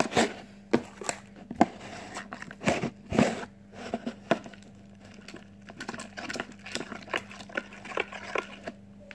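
Homemade glue slime being mixed and squished in a plastic container: irregular sticky clicks, squelches and crackles, over a faint steady hum.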